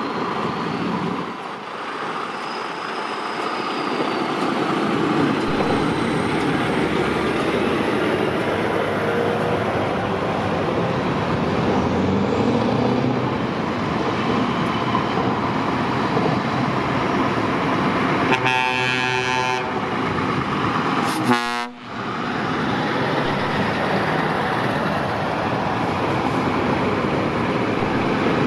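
Heavy trucks driving past one after another, their diesel engines and tyres making a steady din. About two-thirds of the way in, a truck horn sounds twice: a blast of about a second and a half, then a short, louder toot about two seconds later.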